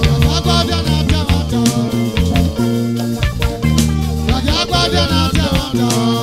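Live Edo band music played loud, with a steady beat, sustained notes and a singing voice in places.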